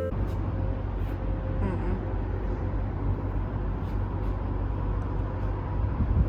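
A car running, a steady low rumble of engine and road noise.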